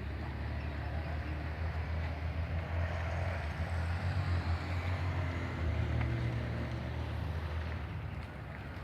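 A vehicle's engine running steadily on the move, a low rumble that wavers a little, with road and wind noise over it.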